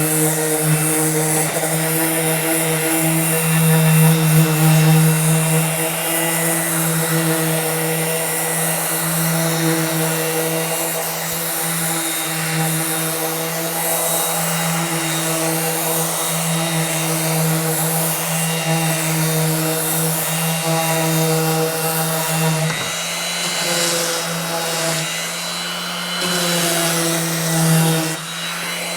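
Electric power sander running steadily while sanding an MDF board, a continuous motor hum over a scratchy hiss, with small dips in level.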